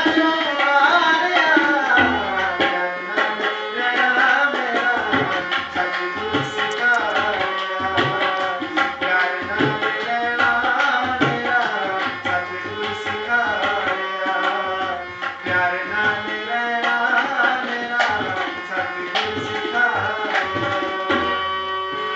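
Tabla and harmonium playing together: quick tabla strokes with recurring deep bass swells from the larger drum, over the harmonium's sustained reed chords.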